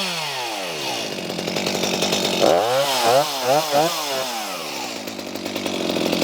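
Stihl MS250 two-stroke chainsaw engine, just started from cold, dropping from high revs to idle, then revved up and down about four times in quick succession before settling back to idle.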